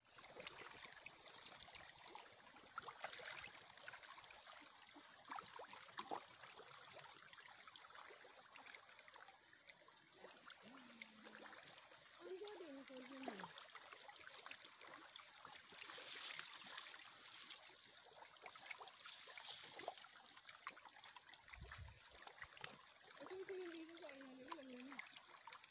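Faint, continuous splashing and trickling of shallow water as a crowd of fish wriggle and thrash in a muddy puddle, a fine crackle of small splashes.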